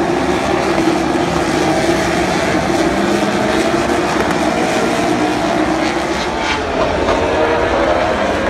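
A pack of MotoGP bikes' four-stroke engines running hard through a corner: many engine notes overlap, with pitches sliding up and down as riders brake and accelerate.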